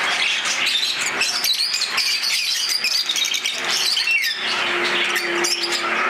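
Many caged birds, among them Fischer's lovebirds, chirping and squawking at once in a dense, shrill chatter. A steady low tone joins in briefly about four and a half seconds in.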